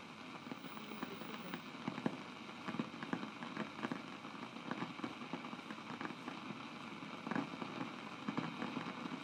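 Steady hiss with irregular small clicks and crackles: the surface noise of an old film's soundtrack played back on a Steenbeck flatbed editor.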